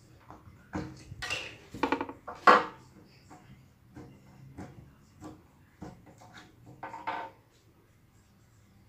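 Slime being squeezed and poked by hand: a run of irregular wet squishes, clicks and pops, some with a short squeaky pitch, stopping about seven seconds in.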